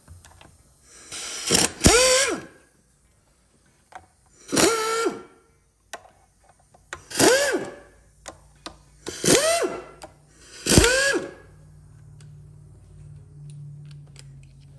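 A cordless power driver running bolts out in five short trigger pulls, a couple of seconds apart. The motor's pitch rises and then falls on each pull.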